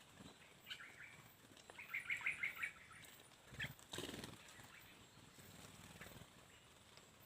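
Small birds chirping: a quick run of about five high notes around two seconds in, with a few scattered single chirps, and a short lower-pitched rustle about four seconds in.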